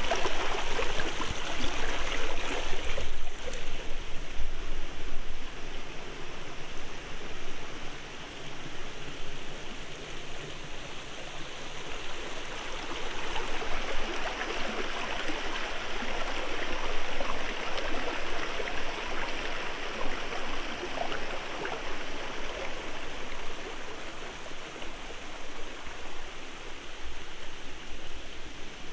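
Small rocky forest stream running steadily over stones and low cascades, a continuous sound of flowing, trickling water, a little louder in the first few seconds.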